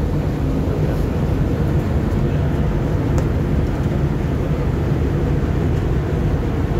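Steady low rumble of a motor ship's diesel engines and propeller under way, with the rush of the wake churning astern.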